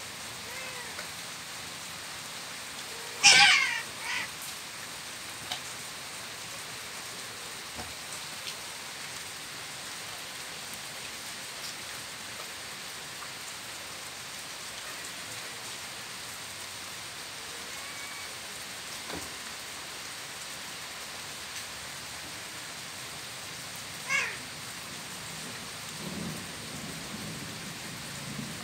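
Steady rain falling on a wet porch, with a cat letting out one loud, sharp yowl about three seconds in and a shorter, quieter cry about 24 seconds in.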